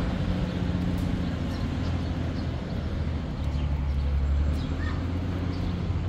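Empty galvanized steel water tank rolled on its rim across a rough concrete roof, making a continuous hollow low rumble with a few light scrapes and knocks.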